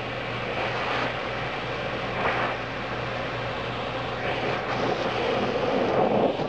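Vacuum cleaner running, a steady motor hum under a rush of air at the hose nozzle that swells and changes a few times and is loudest near the end.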